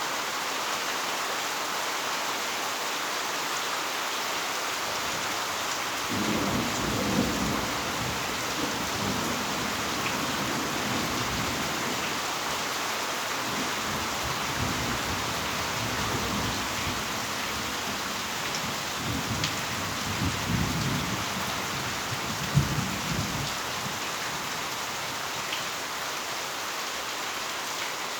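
Heavy rain falling steadily, with thunder rumbling low from about six seconds in and rolling on in several swells until a few seconds before the end.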